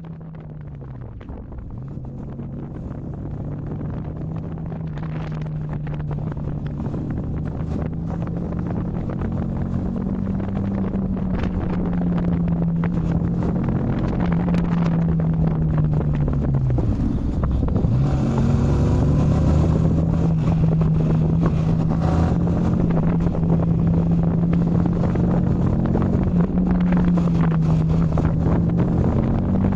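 Yamaha MT-15's 155 cc single-cylinder engine running under way, its note fairly steady but dropping in pitch and picking up again about a second in and again just past halfway, with wind noise on the microphone. The sound fades up over the first several seconds.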